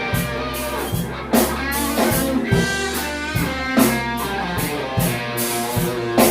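Live slow blues band playing between vocal lines: a lead guitar fill with bending notes over a bass line and drum kit, with a drum and cymbal hit about every second and a quarter.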